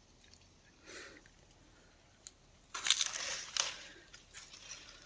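Rustling and crunching of leaves and twigs: a soft rustle about a second in, then a louder burst of crunching lasting about a second, near the middle.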